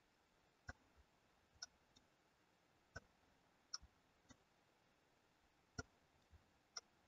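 Faint clicks of a computer mouse button, about eight or nine at uneven intervals, over near-silent room tone.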